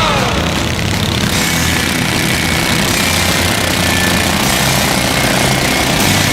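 Racing lawn mower engines running steadily.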